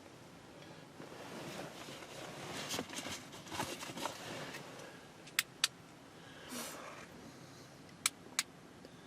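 Shuffling and rustling handling noise, then two pairs of sharp clicks, each pair about a quarter of a second apart, with a brief soft swish between them.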